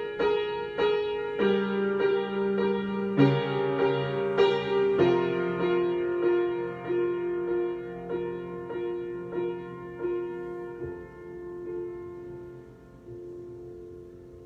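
Solo piano improvisation: a steady pulse of struck notes, about two a second, over held bass notes, slowing and fading away over the last few seconds.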